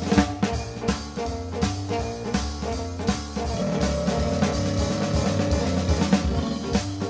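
Jazzy cartoon background music with a drum kit keeping a steady beat over a bass line.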